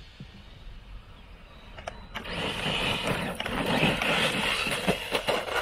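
Traxxas Maxx 4S RC monster truck's brushless electric motor and tyres on loose gravel. The sound is faint at first, then about two seconds in it grows louder and gritty as the truck accelerates hard, spinning its tyres and spraying gravel and dust as it lifts into a wheelie.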